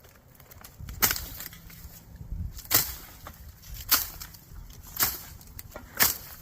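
Bone Tactical Space Cowboy machete chopping, five sharp strikes roughly a second apart.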